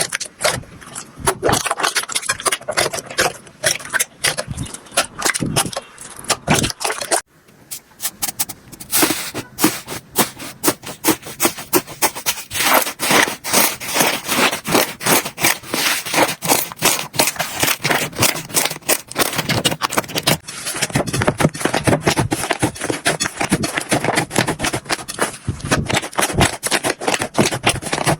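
Slime being squeezed and pressed by hand, a dense run of crackling, popping clicks, with a brief pause about seven seconds in.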